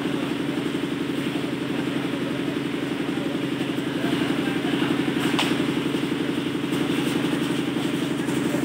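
A steady engine drone with a fast, even pulse, running unchanged throughout, and a single sharp click about five seconds in.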